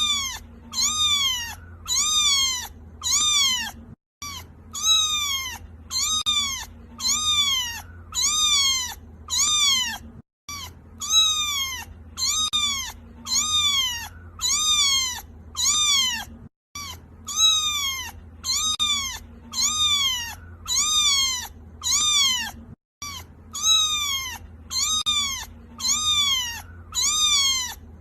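Kitten meowing over and over, high-pitched calls that each rise and then fall in pitch, about one and a half a second. The calls stop for a moment about every six seconds.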